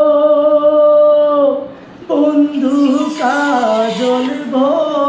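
A young man singing a Bengali folk song unaccompanied: one long held note that breaks off about a second and a half in, then, after a short breath, a run of wavering, ornamented notes.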